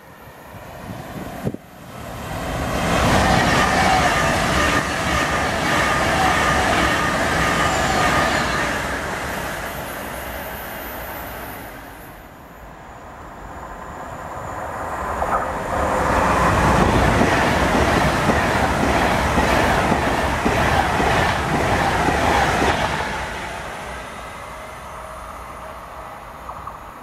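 Two trains passing through the station at speed, one after the other: each time a rush of wheel-on-rail noise swells, holds for several seconds and fades.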